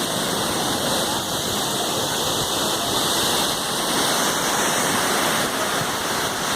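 Waterfall crashing steadily into its pool, a dense even rush of falling water from a drop of about 9 to 10 metres.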